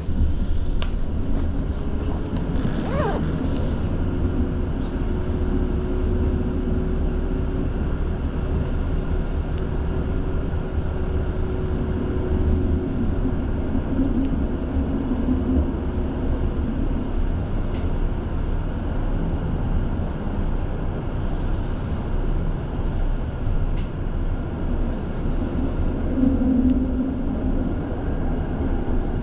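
Helsinki tram in motion: a steady low rumble, with a short rising squeal about three seconds in and a steady whine through the first half.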